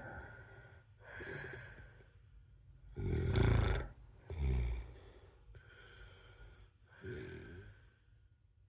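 A man snoring in his sleep: a series of breaths a second or two apart, the loudest a snore about three seconds in, followed at once by a shorter one.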